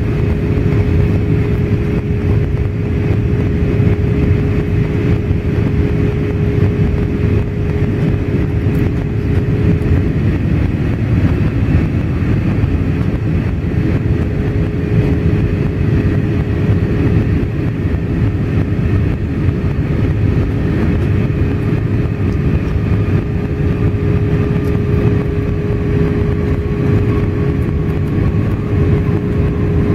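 Steady cabin noise of an Airbus A320 airliner on approach, heard from a window seat over the wing: engine drone and rushing airflow. A steady hum fades out about a third of the way in and returns near the end, and a faint tone slowly falls in the second half.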